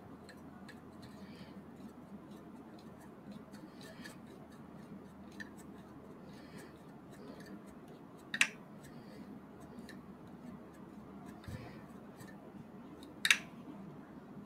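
Small metal and plastic parts of a T-800 Terminator model kit being handled and fitted together by hand: faint scattered clicks, and two sharp clicks about eight and thirteen seconds in.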